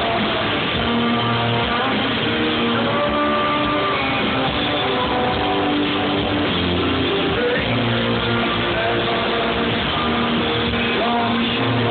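Rock band playing live over an outdoor PA, heard from the crowd: electric guitars, bass and drums with many held guitar notes.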